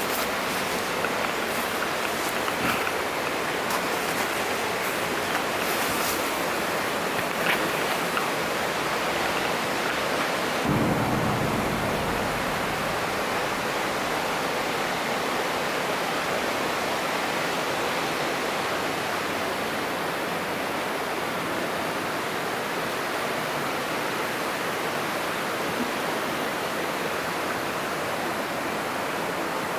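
Rushing water of a mountain stream, a steady hiss. About ten seconds in it briefly deepens with a low rumble, and after that the high end is a little softer.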